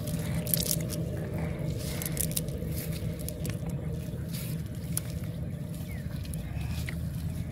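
Rustling and crackling of a nylon fishing net and the weeds caught in it as it is handled and picked clean, with scattered small clicks, over a steady low hum.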